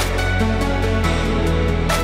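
Electronic background music with a deep, steady bass line.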